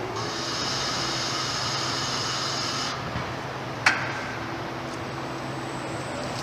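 Electric forklift's hydraulics hissing as the forks lower a wooden crate, stopping after about three seconds. A single sharp click follows about a second later, over a steady low hum.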